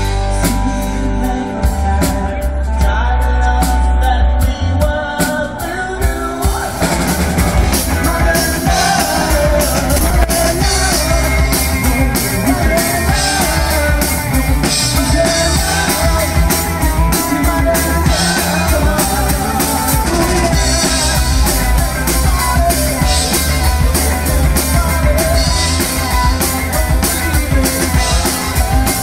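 Live amplified rock band playing: drum kit, electric guitar and bass guitar. About seven seconds in, the sound turns fuller and brighter.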